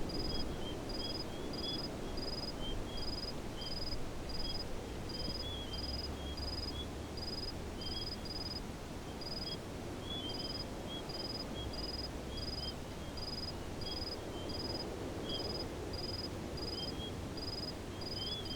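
Outdoor bush ambience: a high chirp repeats evenly about one and a half times a second over softer, irregular twittering and a low, wind-like rumble.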